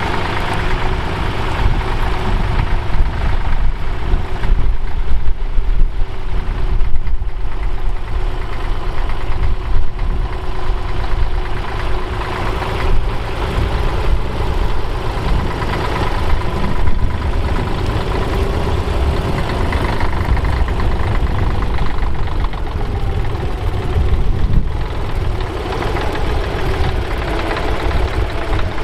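Bukh Juno tractor's diesel engine running steadily while pulling a mounted plough through stubble.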